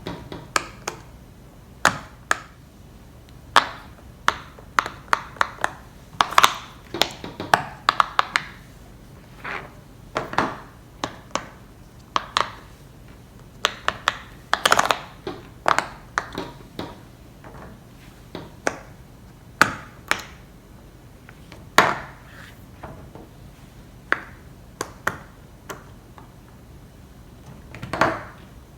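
Fidget toys being clicked and tapped: sharp, irregular clicks, sometimes in quick runs and sometimes a second or two apart, some with a short ringing tail.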